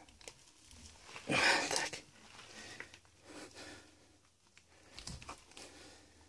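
Handling noise from a gloved hand pressing and shifting a plastic shower drain clamping ring down onto a rubber shower pan liner, with one louder rustle about a second and a half in and a soft thump near the end.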